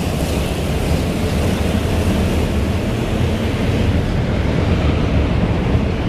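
A pack of slingshot race cars running on an indoor arena track, their engines blending into one loud, steady drone.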